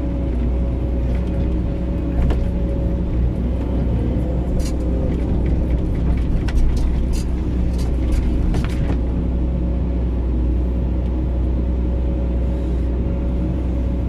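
Hydraulic excavator's diesel engine running steadily while the machine digs, heard from the operator's cab. Scattered clicks and knocks of the bucket working the soil come between about two and nine seconds in.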